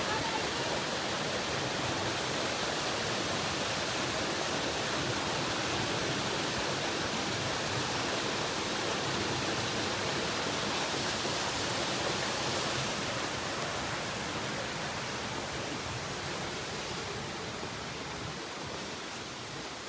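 Waterfall: a steady rush of falling water, easing slightly near the end.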